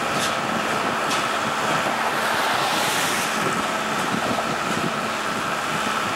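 Steady diesel engine hum from the work train below, with a road vehicle passing close by about three seconds in, its noise swelling and fading.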